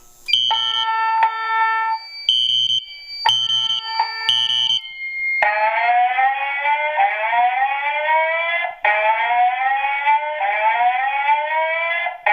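Building fire alarm evacuation signal: a few short bursts of steady multi-note tones, then from about five seconds in a repeating slow rising whoop tone.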